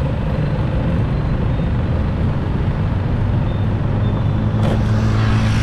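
Rush-hour city street traffic: a loud, steady rumble of engines and tyres. About four and a half seconds in, a deeper engine hum from a nearby vehicle swells, and a single short click sounds.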